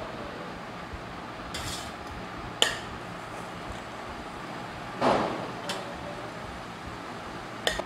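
Tableware clinking as food is served onto plates: a few separate sharp clinks, and a longer rattling scrape about five seconds in.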